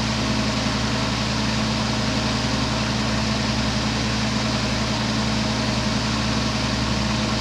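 Glassblowing bench torch burning steadily, an even rushing hiss of the flame with a low steady hum beneath it, while glass is heated to fuse a joint.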